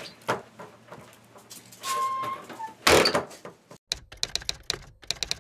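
A door banging shut about three seconds in, followed by a typewriter sound effect clacking out a quick run of keystrokes.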